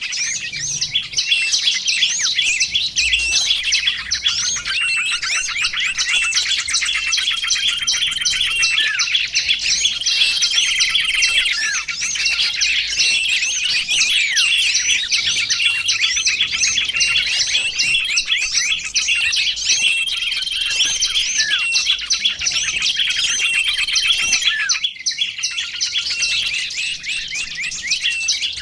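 Several small songbirds chirping and twittering at once in a dense, continuous chorus of rapid trills and quick high notes, with short repeated whistles running through it: a recorded mix of small-bird lure calls.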